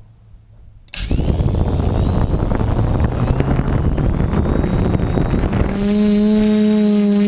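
TBS Discovery quadcopter's brushless motors and 10x5 propellers starting up suddenly about a second in: a loud rumble with a thin whine climbing in pitch and then holding steady. Near the end the propellers settle into a loud, steady hum as the throttle comes up.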